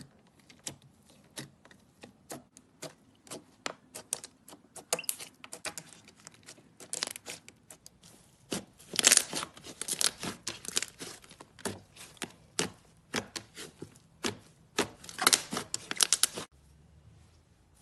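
Slime being squeezed, poked and stretched by hand, making a run of sharp wet clicks and crackling pops. It thickens into dense crackling bursts past the middle and stops shortly before the end.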